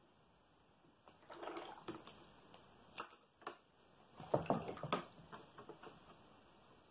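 Watercolour brush working on paper: soft scratchy dabs and strokes about a second in and a louder cluster about four seconds in, with a few sharp clicks between them.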